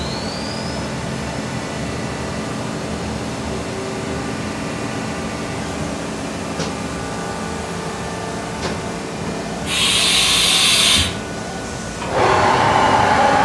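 Haas VF-7/40 CNC vertical machining center running, with a steady hum and motor whine while its table travels, and a brief rising whistle at the start. A couple of faint clicks follow, then a hiss of air lasting about a second, about ten seconds in. A louder rushing noise starts near the end.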